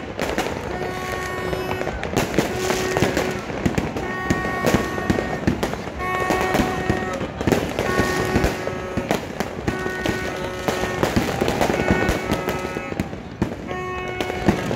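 Fireworks going off in a rapid, continuous stream of crackles and bangs, with music playing underneath in short phrases of held notes.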